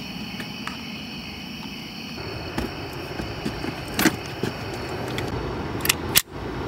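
Clicks and knocks of a car's centre console being opened and a handgun being taken out and handled, with a sharp click about four seconds in and two more sharp clicks near the end, over a steady hum.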